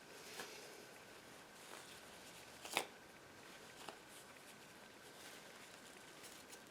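Faint handling sounds of work on a bird skin: a few small clicks and rustles, the sharpest nearly three seconds in, over a quiet room with a faint steady high whine.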